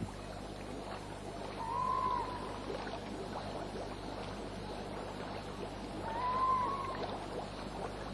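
Steady outdoor ambience, a low hiss over the steaming hot-spring pool, with a short whistle-like call that rises and falls, heard twice about four and a half seconds apart.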